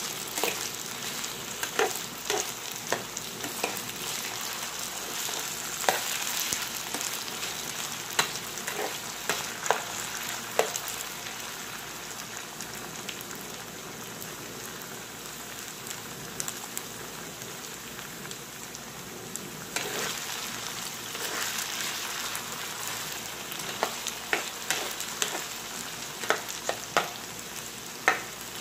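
Diced potatoes frying in oil in a non-stick pan, a steady sizzle throughout. A spoon stirring them scrapes and taps against the pan now and then, often in the first third and again near the end, rarely in between.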